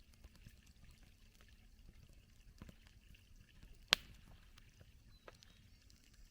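Campfire crackling faintly, with scattered small pops and one sharp loud pop about four seconds in.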